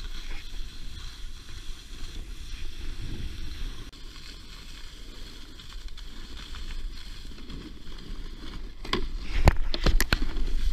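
Snowboard sliding and scraping over groomed snow, with a steady rush of wind and a low rumble on the action camera's microphone. Near the end come several sharp knocks and a louder scrape as the board lands hard on the snow.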